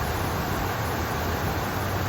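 Water rushing and splashing in a steady, unbroken flow.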